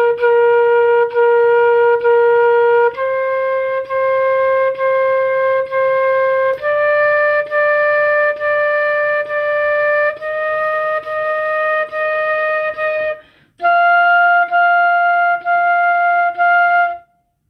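Flute playing a slow rising scale exercise: five notes climbing step by step from concert B-flat up to F, each note played four times as separate, even notes, with a short breath before the last group.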